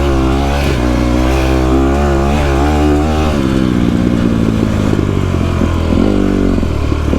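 150cc dirt bike engine running under throttle while riding, its pitch rising and falling with the revs, then settling lower about three seconds in as the throttle eases off.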